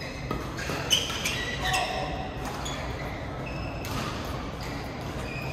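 Badminton rally in a large hall: a few sharp racket strikes on the shuttlecock in the first two seconds, the loudest about a second in, with short squeaks of shoes on the court mat. The strikes stop after about two seconds while a few shoe squeaks go on over background voices.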